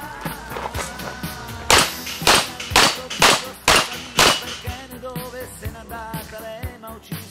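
Six pistol shots in quick succession, about half a second apart, knocking down the steel plates of a plate rack, over background music.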